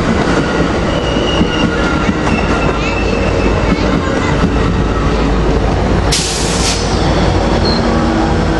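Passenger train rolling along the track: steady heavy rumble with wheels clicking over rail joints and a faint thin wheel squeal. A short hiss cuts in about six seconds in and stops within a second.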